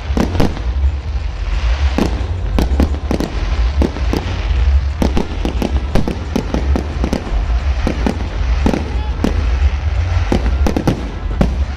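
Fireworks bursting: many sharp bangs and cracks, irregular and often several a second, over a steady low rumble.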